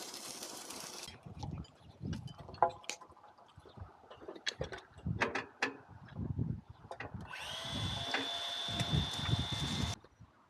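Scattered knocks and clatter of construction work, then an electric power tool spins up about seven seconds in, runs at a steady high whine for nearly three seconds and stops.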